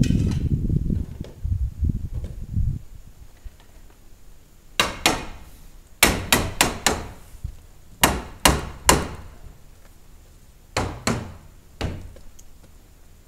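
Hammer tapping about a dozen times in short groups of two to four, each strike sharp with a brief ring, fitting framing and trim on a polycarbonate greenhouse wall. A low rumbling noise fills the first few seconds, before the tapping starts.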